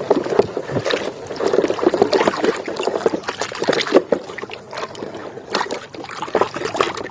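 Water sloshing and splashing as a muddy toy vehicle is washed by hand in clean water, with irregular small splashes and knocks.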